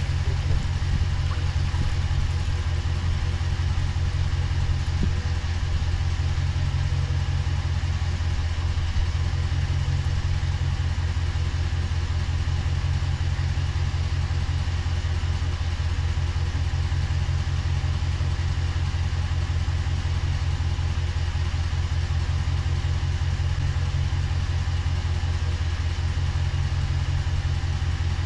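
A small fishing boat's motor running steadily at an even speed, with a deep low hum and no change in pitch.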